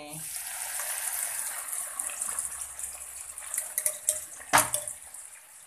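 Hot cooking oil poured through a steel mesh strainer onto blended chillies, sizzling and hissing hard as it hits them. The sizzle dies down toward the end. A single sharp knock comes a little after four and a half seconds in.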